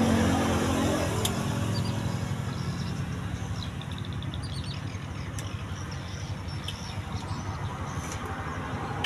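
A motor vehicle's engine passing close by and fading away, leaving a steady low rumble.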